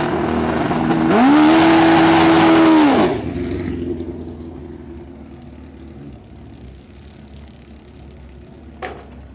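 Drag motorcycle engine doing a burnout: revved hard about a second in and held at high revs for about two seconds with tyre hiss over it, then the revs drop and the engine fades as the bike rolls away.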